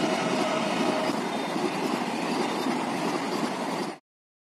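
Passenger train rushing past at speed, its horn holding one note that sags slightly in pitch and stops about a second in. The steady rush of the passing coaches continues, then cuts off suddenly about four seconds in.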